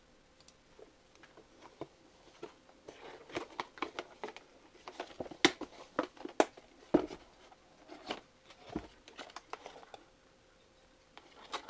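Rummaging through a box and its packaging: scattered crinkles, rustles and sharp little knocks, busiest from about three seconds in until near the end.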